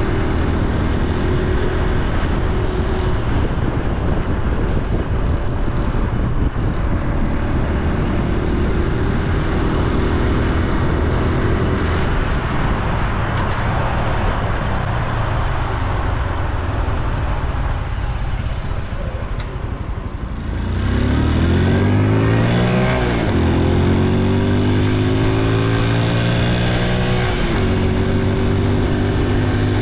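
Honda Super Cub C125's single-cylinder engine and exhaust on the move, with wind noise over the microphone. It runs steadily, eases off past the middle, then accelerates about two-thirds in, its pitch climbing and falling back at two gear changes.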